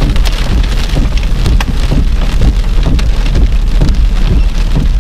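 Heavy rain pelting a vehicle's windshield and body, heard from inside the cab as a dense patter of drops over a steady low rumble.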